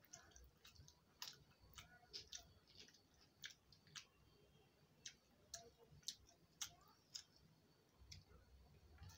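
Faint eating sounds from a meal of rice and potato-pea curry eaten by hand: irregular sharp clicks and smacks from chewing, and from fingers mixing rice on the plate, a few each second.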